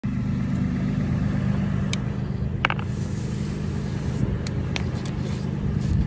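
Toyota 4Runner's engine idling steadily at the exhaust, warming up in the snow, with a few short sharp clicks over it.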